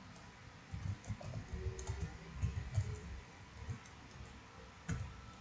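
Computer keyboard typing: a run of quiet, uneven key taps, then a single sharper keystroke near the end.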